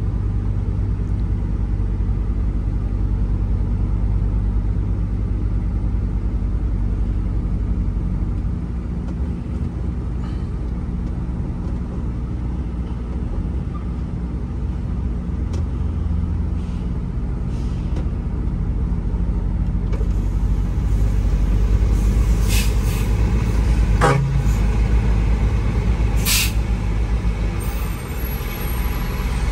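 Diesel engine of a tractor-unit truck running steadily at low speed, heard from inside the cab. Several short, sharp air-brake hisses come in the last third.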